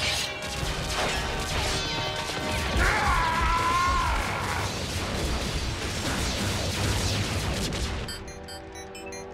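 Cartoon robot-fight sound effects: repeated metal crashes and impacts over background music. About eight seconds in they give way to a quick run of short electronic beeps from a computer display.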